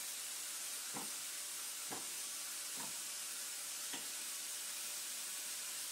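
Steady faint hiss with four light clicks about a second apart: steel plates being handled and set down on a steel workbench.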